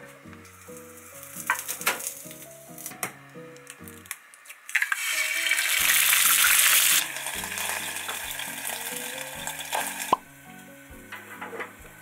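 Egg dropped into a hot rectangular egg pan beside frying sausages: a sudden loud sizzle about five seconds in, strongest for two seconds, then a softer steady frying hiss that stops about ten seconds in. A few light clicks come before it.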